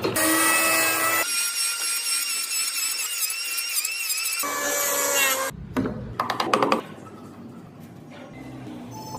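An electric power tool working wood: its motor whines steadily, then rises higher with a wavering pitch as it cuts for a few seconds, then drops back. Several knocks follow, and quieter handling of the wood.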